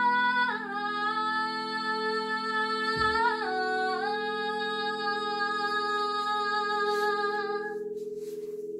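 A woman singing long held notes that step down in pitch twice, over the steady ringing of crystal quartz singing bowls. Her voice stops near the end, leaving the bowls ringing on their own.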